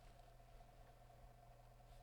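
Near silence: a faint steady hum with a faint higher tone above it.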